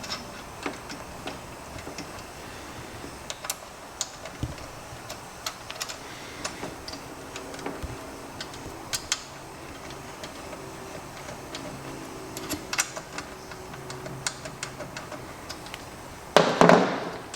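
Scattered light metallic clicks and taps of small engine parts being handled and fitted on the head of a Tillotson engine during rocker and pushrod assembly. Near the end there is one louder burst of noise, about half a second long.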